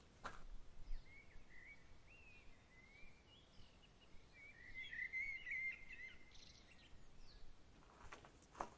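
Small birds chirping and twittering faintly, busiest a few seconds in. There are a few soft knocks near the start and again near the end.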